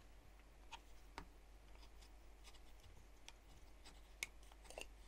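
Near silence with a few faint, short clicks of camera gear being handled on a tabletop: a camera body and lens adapter being picked up and set down. The loudest click comes just after four seconds in.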